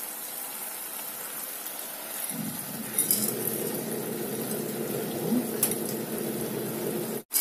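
Wet rinsed buckwheat grains being tipped from a container into a pot of stewed meat, a steady grainy rustle starting about two seconds in, with two sharp clinks of the container against the pot.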